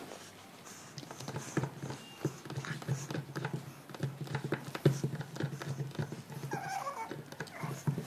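Pug puppy biting and pawing at a metal drawer-lock knob: a string of sharp clicks and knocks of teeth and claws on metal and wood.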